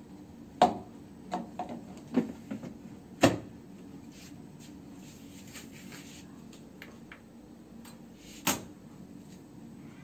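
Sharp plastic knocks and clatters in the first few seconds as a Siemens front-loading washing machine's powder drawer is pushed shut and a plastic beaker is handled and set down, then one more single knock near the end.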